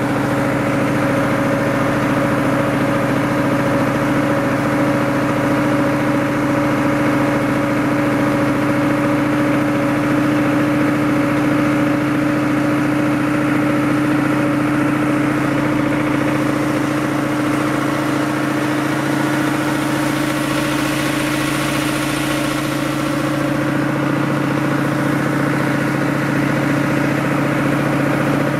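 An engine idling steadily, a constant hum that holds the same pitch throughout, with an even hiss over it.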